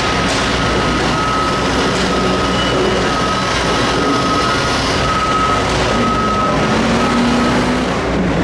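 Liebherr R9200 mining excavator's diesel engine running loud and steady, echoing in a large hall, with a repeated high-pitched alarm beep over it that stops shortly before the end.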